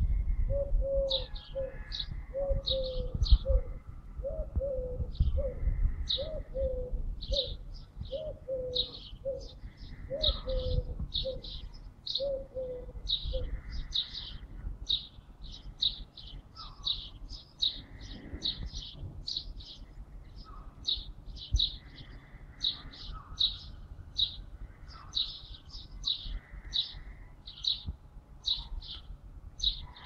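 Small birds chirping: short high chirps come several a second and do not stop. Through the first half another bird gives a run of short, lower notes, each falling in pitch, at about two a second. A low rumble sits under the first few seconds.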